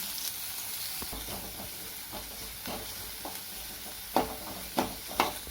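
Chopped onion sizzling in hot oil in a pan while being stirred with a spatula, with a few louder scrapes against the pan near the end.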